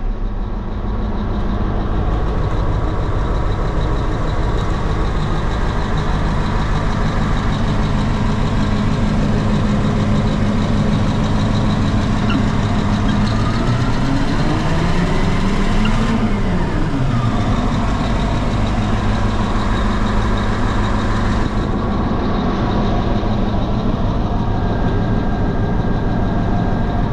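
Diesel engine of a 1995 Cat 631E wheel tractor scraper idling steadily, heard from inside the cab. About halfway through it revs up briefly and falls back to idle.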